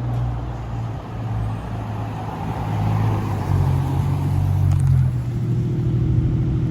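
Land Rover Defender 90 engine running with a low, steady exhaust drone that grows a little louder about halfway through; the exhaust note does not sound stock.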